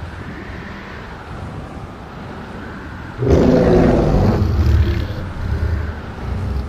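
Low rumbling ambience, then about three seconds in a sudden, loud Godzilla-style monster roar with a deep, growling low end that lasts a couple of seconds and tails off into the rumble.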